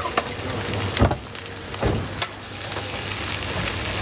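Food sizzling in hot oil at a street food stall, a steady hiss, with a few sharp knocks about one and two seconds in.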